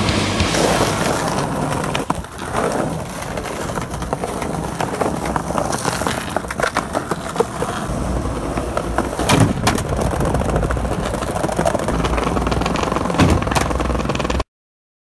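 Skateboard wheels rolling over rough pavement with a steady grinding rush, broken by occasional sharp clacks and knocks from the board. City traffic rumbles past in the background. The sound cuts off abruptly near the end.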